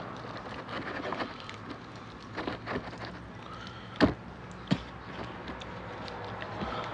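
Eating by hand from a paper box of chicken biryani: soft chewing and mouth noises with small rustles and clicks, and two sharp clicks less than a second apart about four seconds in, over a steady low hum.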